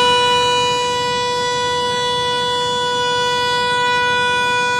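Train horn sounding one long, steady single-note blast.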